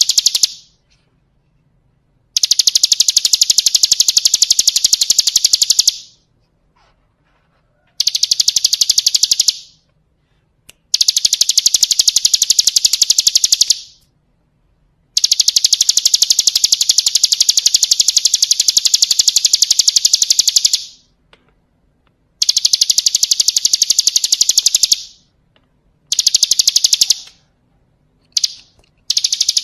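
Bar-winged prinia (ciblek kristal) singing its fast, high, rattling trill in repeated bouts of a few seconds each, with short silent gaps between.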